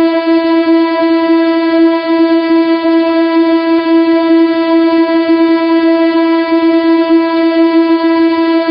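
The 'too much testosterone' meme sound effect: a single loud, steady, buzzy horn-like tone held without a break or change in pitch.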